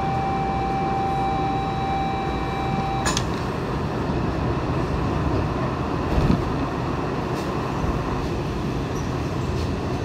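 Inside a Trensurb commuter train car: the train's steady hum, with a high electronic warning tone held for about three seconds that cuts off with a click, the sign of the doors closing. A short low thump follows about six seconds in.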